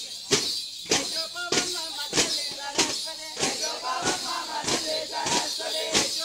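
Tappeta gullu chest drums beaten together by a troupe of dancers in a steady beat, a little under two strikes a second, with a group of voices chanting along from about a second in.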